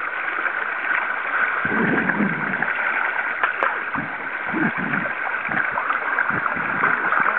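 Steady rush of river current flowing around wading legs, with a couple of short low muffled sounds about two and five seconds in.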